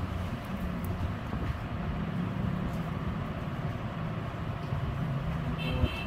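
Steady low background rumble, with a brief high tone near the end.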